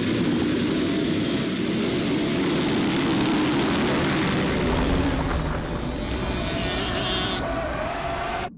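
A pack of motocross dirt bikes with their engines running together, a dense drone of many overlapping engines at high revs. It cuts off suddenly at the end.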